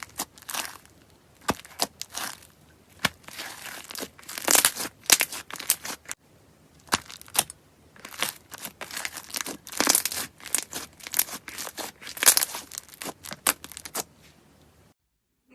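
Crunchy slime being squeezed and pressed by hand, giving dense runs of sharp crackles and pops in clusters. It breaks off abruptly just before the end.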